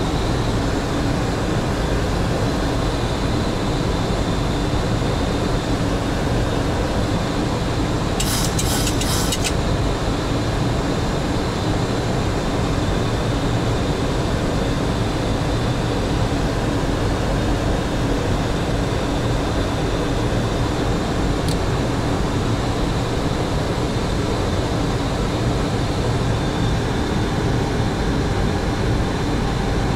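Steady flight-deck noise of a Boeing 737NG in flight: a continuous rush of airflow and air-conditioning with a low steady hum. A brief crackle of clicks comes about eight seconds in.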